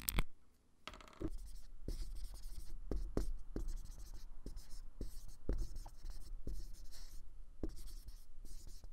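A marker pen writing: a run of short, scratchy strokes with small ticks of the tip between them, as letters are drawn one after another.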